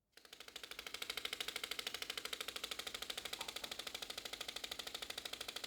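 WearSway's wearable actuator running: motors vibrating strings to make a cloth sleeve flutter like clothing in a strong gale, giving a steady, fast mechanical rattle of about thirteen pulses a second.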